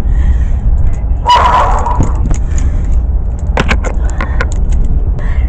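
Steady low rumble of a patrol car's engine and road noise heard from inside the caged back seat. A brief louder noise comes about a second in, and a handful of sharp clicks follow a little after halfway.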